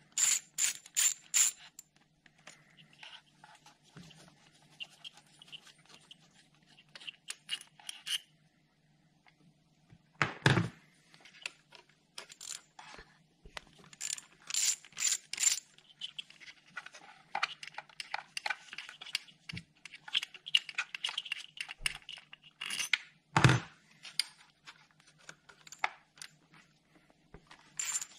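Ratchet wrench with a 10mm socket clicking in quick bursts as the coil pack bolts are undone, with two louder knocks of tools or parts being handled, one about a third of the way through and one later on.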